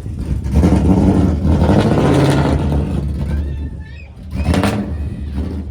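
Loud exhaust of an RTR Mustang rumbling, swelling about half a second in, dropping away briefly past the middle, then picking up again.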